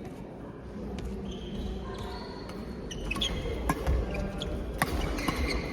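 Court sounds of a doubles match: a low background murmur with short high squeaks, then from about three seconds in several sharp hits, the play getting busier toward the end.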